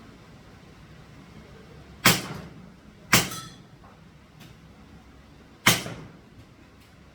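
Three sharp shots from an airsoft rifle, the second about a second after the first and the third about two and a half seconds later, each followed by a short ringing tail.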